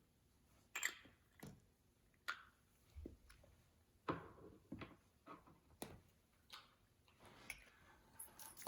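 Slime being handled: faint, irregular sticky clicks and pops, about a dozen over several seconds, a few with a short wet smear after them.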